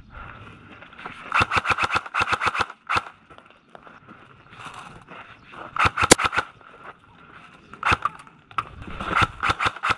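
Airsoft electric guns firing in quick bursts of sharp clacks, three bursts with single shots between them.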